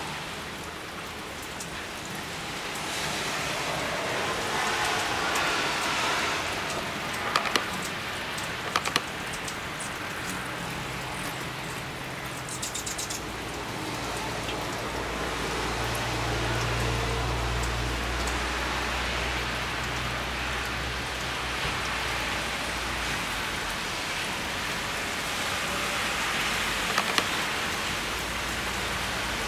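Steady rain falling, with a few sharp taps now and then and a faint low rumble partway through.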